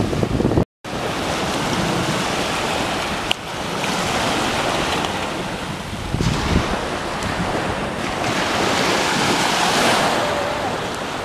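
Small waves washing up on a sandy beach, with wind blowing across the microphone. The sound cuts out completely for a moment just under a second in.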